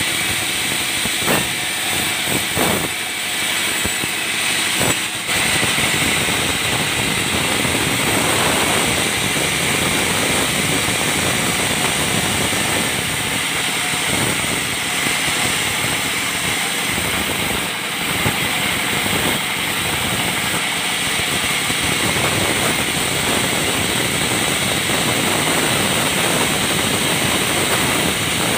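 Band sawmill cutting lengthwise through a balsa log, a steady mix of a small stationary diesel engine running and the blade sawing through the wood, with a few sharp knocks in the first five seconds.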